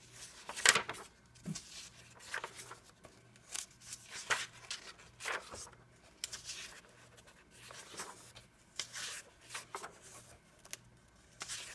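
Pages of a glue-bound coloring book of medium-weight paper being turned one after another and smoothed flat by hand: a string of short, irregular papery rustles and flaps.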